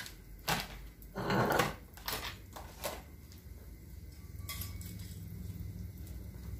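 Kitchen clatter: several short knocks and clinks of dishes and utensils in the first few seconds, then a low steady hum that grows slightly louder from about four seconds in.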